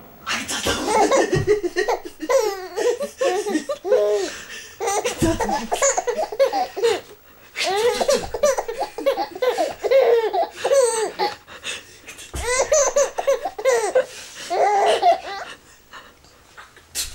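Baby laughing in repeated bouts of belly laughs, with short breaks for breath between them, tailing off quieter near the end.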